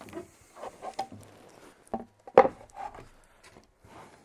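Wooden toilet-box panels being handled and laid out: scattered knocks and rubbing of wood, the loudest knock about two and a half seconds in.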